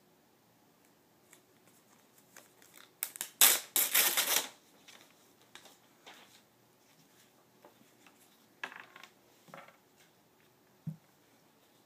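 Gloved hands handling dressing supplies: a loud burst of crinkling, tearing paper or plastic packaging a few seconds in, shorter rustles later, and a soft thump near the end.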